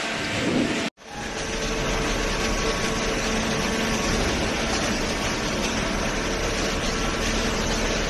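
Cardboard baler running: a steady machine noise with a constant hum. The sound cuts out for a split second about a second in.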